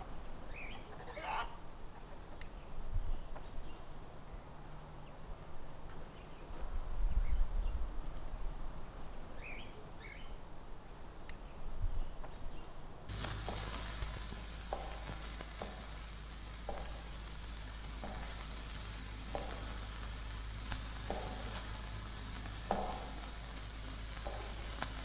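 Outdoor ambience of a low, uneven rumble with a couple of short bird calls. About halfway through it changes to a steady hiss and hum in a stone interior, with footsteps knocking on the stone floor about once a second.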